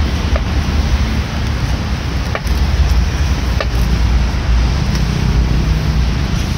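A knife cutting green mango on a wooden cutting board, a few light taps of the blade against the board, under a steady low rumbling background noise.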